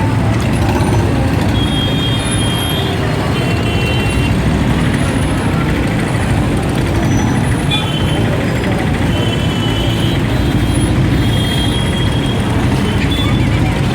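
Congested road traffic at a railroad crossing: many vehicle engines running together in a steady din, with horns sounding briefly several times.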